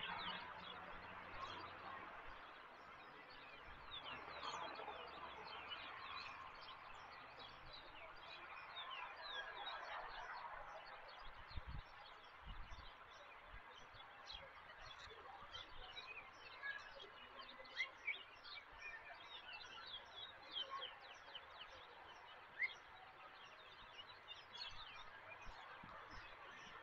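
Faint birdsong: many short, high chirps throughout, over a soft outdoor hiss. There are a couple of brief low thuds about halfway through.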